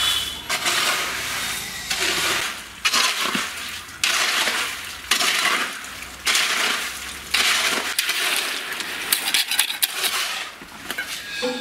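Repeated gritty scraping strokes, about one a second and each starting sharply, of a tool working through wet sand-and-cement mortar.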